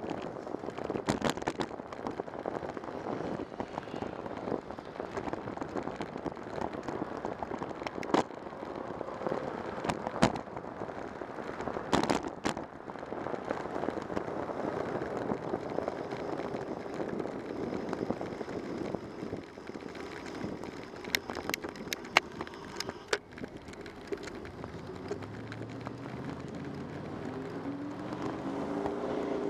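Road and wind noise of a bicycle ride on a city street, picked up by a camera on the bike: a rough, crackling rush with sharp knocks from bumps in the pavement. Near the end, a motor vehicle's engine is heard rising in pitch as it speeds up.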